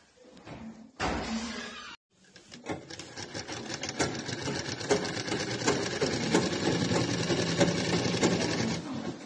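Sewing machine stitching a seam through green tego cloth: a quick, even run of needle strokes that starts about two and a half seconds in and stops just before the end. It is preceded by a brief burst of noise about a second in.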